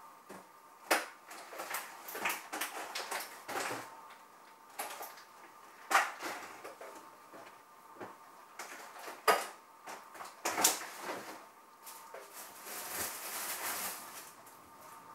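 Kitchen clatter: a series of sharp knocks and clinks of things being handled, with a few louder knocks about 1, 6, 9 and 11 seconds in, over a faint steady tone.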